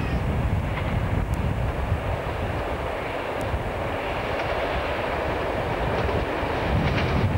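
Two English Electric Class 37 diesel locomotives, V12 engines running, approach at the head of a ballast hopper train, with a steady rumble. Near the end it grows a little louder and the wheels start to click over the rail joints.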